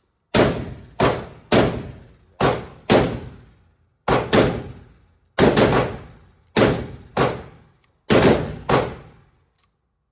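Pistol shots at a shooting range: about a dozen sharp reports at an uneven pace, some in quick pairs, each followed by a short echoing decay.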